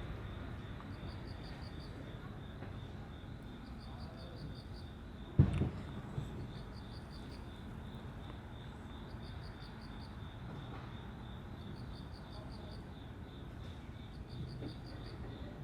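Insects chirping steadily in repeating pulsed trills over a low background rumble, with one sharp knock about five seconds in.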